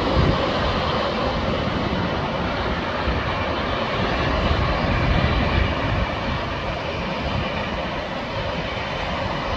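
Jet airliner engines running steadily as the plane descends away from the listener on final approach to the runway; the sound eases off a little about six seconds in.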